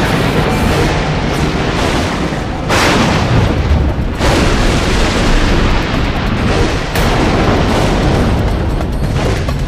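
Dramatic soundtrack music laden with heavy booms, with sudden loud hits at about three, four and seven seconds in.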